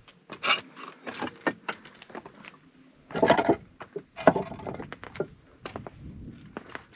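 A hiker's footsteps on bare rock slabs while climbing: an uneven run of sharp clicks and knocks, with a few louder scuffing steps.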